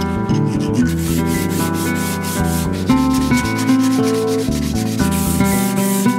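Steel being worked by hand with a file and an abrasive strip, a rubbing, scraping sound in repeated strokes, with instrumental background music playing throughout.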